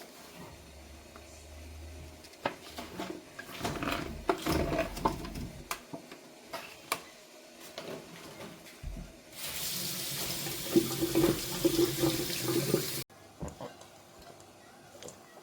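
Kitchen tap running into a sink for a few seconds, stopping abruptly, with clinks and knocks of dishes and utensils being handled before it.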